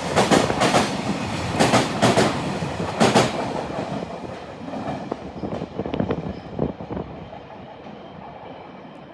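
Freight train's Koki container wagons rolling over rail joints: wheelsets strike the joint in loud paired clacks, then the clacking fades and thins out as the train moves off, with a few faint clacks near the end.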